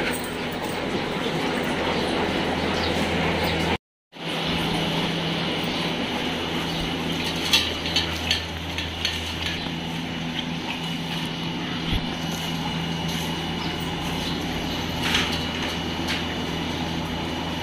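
A steady mechanical hum under a noisy hiss, cut off for a moment about four seconds in, with scattered light clicks and clinks.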